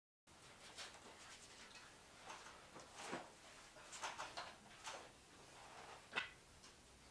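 Faint, irregular light taps and clicks over quiet room tone, the sharpest about six seconds in.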